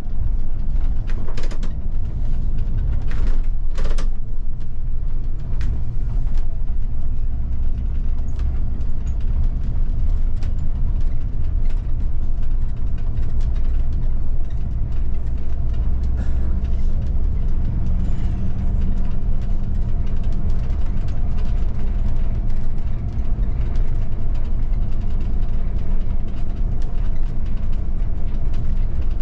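Bus engine and road noise heard from the driver's cab while driving: a steady low rumble, with a few sharp rattles or knocks in the first four seconds.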